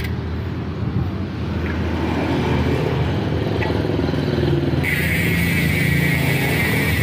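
Nautilus Clickr 148 rear hub freehub ratcheting as the wheel spins in a stand: its stock pawl buzz, before any upgrade, over a low steady hum. The high buzz fades out at the start and comes back strongly about five seconds in.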